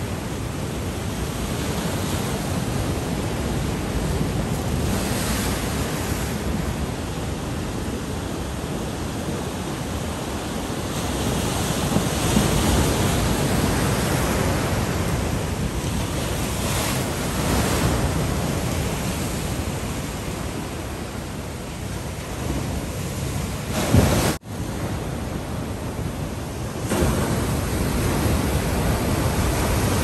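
Heavy king-tide surf: large waves breaking and washing ashore in a continuous rush that swells and ebbs, with wind buffeting the microphone. The sound cuts out for an instant a little over three-quarters of the way through.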